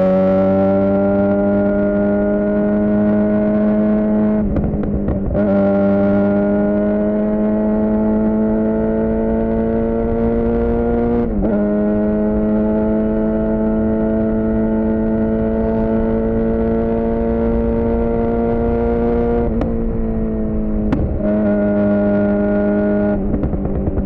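Suzuki GSX-R600's inline-four engine through a Yoshimura R11 exhaust, riding at steady mid revs with the pitch creeping slowly up under light throttle. The note dips briefly at gear changes about four and a half, eleven and twenty seconds in.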